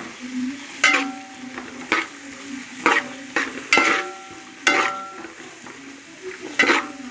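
Sliced onions and green chillies frying in coconut oil in an uruli, stirred with a spoon that knocks against the metal pan several times, each knock ringing briefly.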